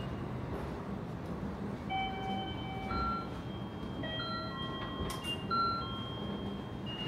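An electronic chime plays a short melody of clear, held notes at several pitches, starting about two seconds in and overlapping one another until near the end, over steady background noise.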